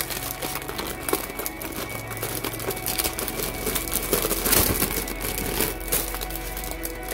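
Clear plastic wrapping crinkling as hands handle and shake a packet of etched metal model sheets, the crackling busiest about halfway through. Background music plays underneath.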